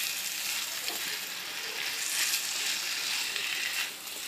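Sliced rattan shoots and tuhau sizzling steadily as they are stir-fried in a metal wok, tossed and turned with a spatula.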